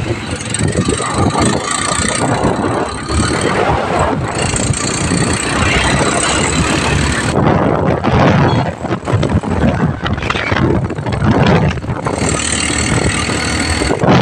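Engine of a motorized tricycle running as it rides along a road, with wind rushing past the microphone.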